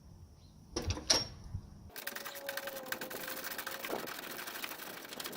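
A couple of tool clicks about a second in, then from about two seconds a fast, steady run of mechanical clicking with a faint whine: a socket tool backing out the bottom bolt of a Jeep Wrangler TJ hood latch.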